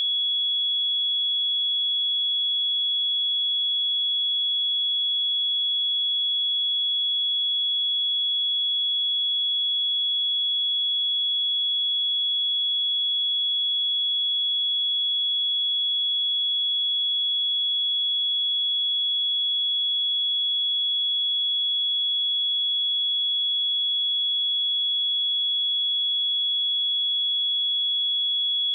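A steady, high-pitched 3365 Hz sine-wave test tone, one pure pitch held unchanged at constant level.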